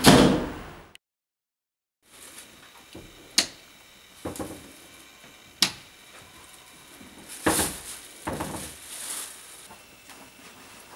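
A loud rush of noise at the start fades out within a second and cuts to dead silence. Then, in a quiet room, come a few sharp clicks and soft knocks and rustles.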